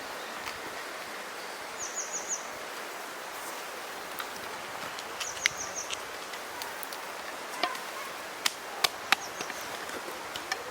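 Outdoor ambience: a steady background hiss with two short runs of four quick high chirps and a few sharp clicks scattered through the second half.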